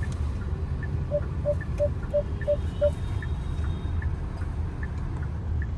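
Turn-signal indicator of a 2024 Hyundai Creta ticking steadily over low cabin road rumble. About a second in, six short even beeps, about three a second, from the car's parking sensors.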